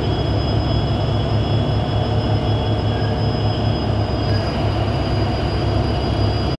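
Heavy engine machinery running steadily: a deep pulsing throb with a thin, steady high whine above it.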